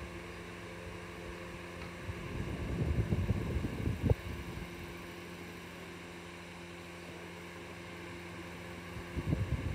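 Steady low hum with swells of low rumble about three seconds in and again near the end, and a single sharp click about four seconds in.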